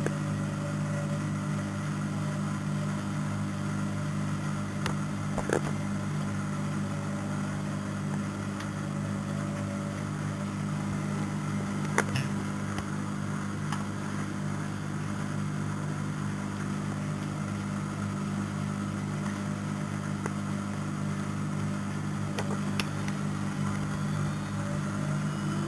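Neff washing machine in its spin cycle, drum and motor running with a steady hum. A few sharp clicks or ticks come through, about five, twelve and twenty-three seconds in.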